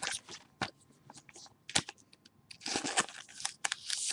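Trading cards and their packaging being handled: a few sharp clicks, then a burst of crinkling about two and a half seconds in.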